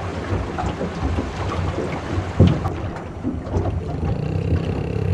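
Wind rumbling on the microphone and river water moving against the hull of a drifting fishing boat, with a single thump about two and a half seconds in.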